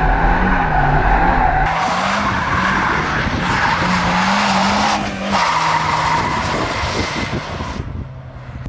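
Nissan 200SX S13's turbocharged CA18DET inline-four revving hard while the rear tyres skid and squeal through a drift. At first it is heard from inside the cabin, then from trackside after about two seconds; the engine eases off near the end.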